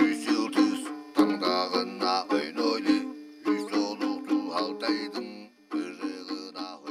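Background music on a plucked string instrument: a quick run of picked notes, with a short pause about five and a half seconds in.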